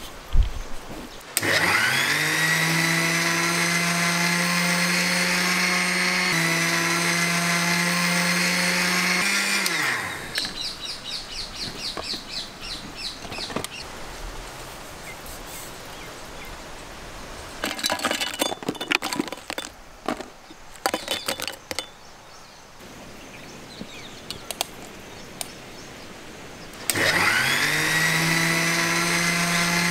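Electric mixer grinder spinning up with a rising whine and running steadily as it grinds bourbon biscuits to powder. It runs twice: from about a second in for some eight seconds, and again near the end. Between the runs the sound is quieter, with a few knocks and clatter.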